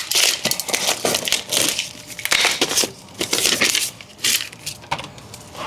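Irregular crinkling and crackling of packaging being handled and opened, as a set of new brake pads is unpacked.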